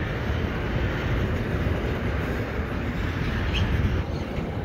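RailPower RP20BD switcher locomotive and its train on the move, a steady low rumble.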